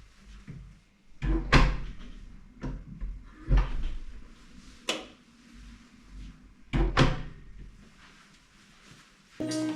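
A handful of knocks and bumps of doors or cupboards being opened and shut, irregular and spread over several seconds. Music begins near the end.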